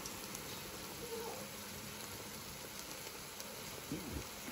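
Diced onions and tomatoes sizzling gently in a frying pan.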